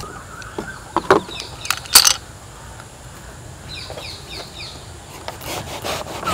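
A few knocks of things set down on a bamboo table, the loudest about two seconds in, while a bird chirps a quick run of short falling notes in the middle. Near the end a knife starts cutting into the thick rind of a pomelo.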